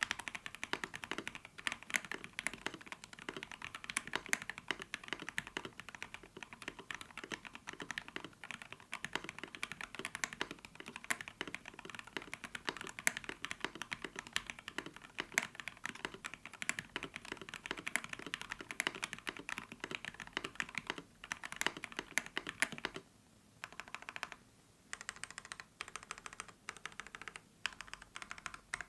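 Fast typing on an IKKI68 Aurora mechanical keyboard with FFFF linear switches lubed with 205g0 and 105g0, mounted on an FR4 plate: a rapid, continuous stream of key clicks that stops for two short pauses near the end.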